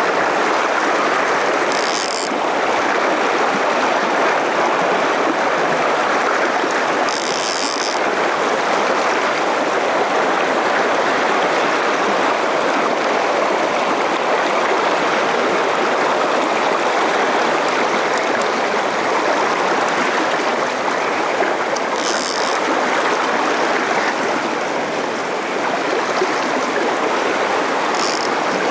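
Fast-flowing river running steadily over a stony bed, a broad even rush of water. A few brief high-pitched swishes come through it, about two, seven, twenty-two and twenty-eight seconds in.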